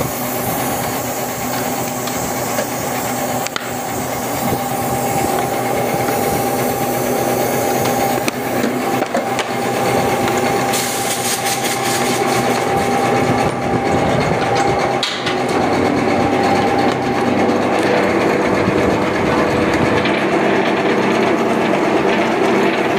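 Plastic extrusion blow-moulding machinery running, a steady mechanical drone with a constant whine and light rattling. About three-quarters of the way through, the whine gives way to a lower set of steady tones.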